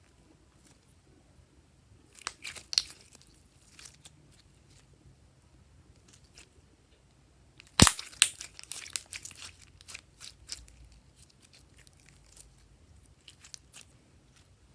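Slime being stretched, pressed and mixed by hand, making scattered sticky clicks and pops. A loud snap comes about eight seconds in, followed by a flurry of crackles.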